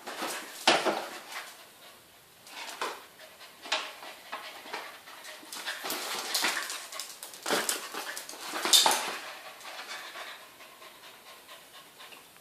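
Welsh corgi panting and whimpering, broken by several sharp knocks and scrapes, the loudest near the start and about two thirds of the way in.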